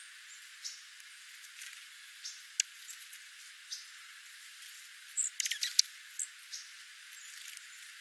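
Dark-eyed juncos foraging on scattered birdseed: light pecking ticks and seeds shifting, with a quick run of sharper clicks a little past halfway.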